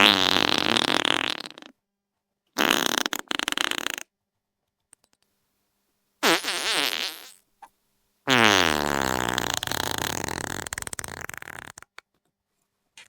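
Wet fart sound effects: a string of separate pitched, spluttering farts with silent gaps between them, the last and longest lasting about three and a half seconds.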